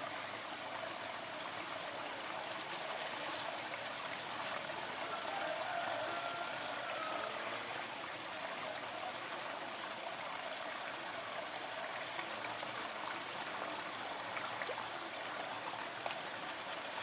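Steady rush of running water. A thin, high, steady tone comes in twice, each time for a few seconds.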